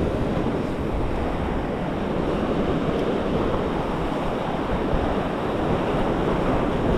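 Ocean waves washing against a rock jetty, with wind buffeting the microphone.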